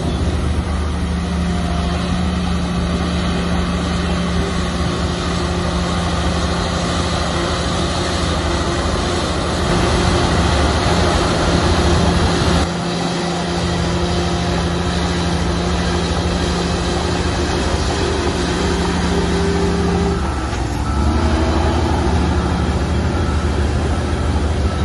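Heavy diesel engine of a bulldozer running steadily under load while pushing soil, its note dropping briefly about thirteen seconds in and changing pitch a little past twenty seconds as the load changes.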